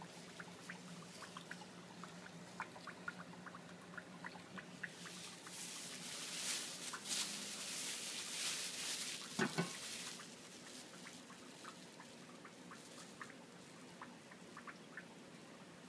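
A plastic bag holding a lump of frozen beef crinkles as it is handled, from about five to ten seconds in, with one sharp click near the middle. Faint light ticks and drips run throughout over a low hum that fades out about halfway through.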